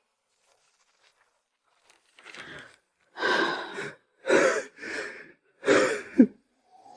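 A person's breathy gasps: five short, harsh breaths starting about two seconds in, the last ending in a brief voiced catch.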